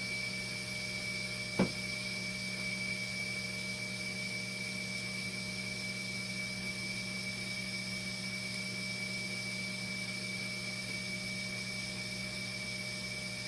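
Steady hum of running equipment with a thin high whine, and a single sharp click about one and a half seconds in.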